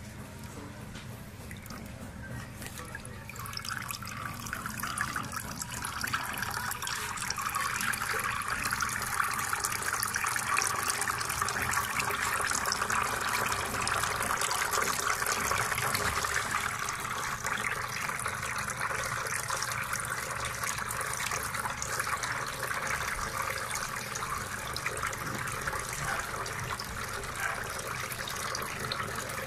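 Thin streams of water falling from a row of small spouts into the basin of a homemade tabletop waterfall fountain, a steady splashing trickle. It grows louder a few seconds in and eases a little after the middle.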